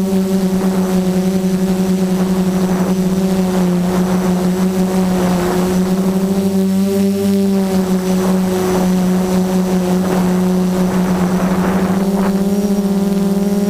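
F330 quadcopter's brushless motors and propellers whining steadily in flight, heard from the camera on board, the pitch shifting a little with the throttle.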